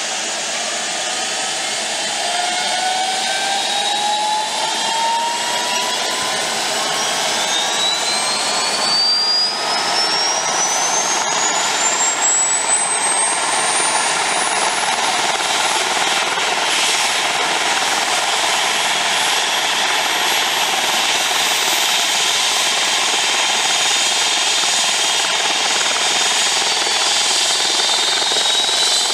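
Airbus H135 helicopter's turbine engines starting up: a whine that rises steadily in pitch for about the first fifteen seconds and then levels off, over a steady rushing hiss as the main rotor starts to turn.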